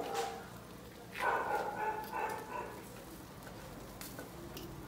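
A dog barks briefly about a second in. Faint clicks of a knife against a wooden cutting board come through as grilled beef is sliced.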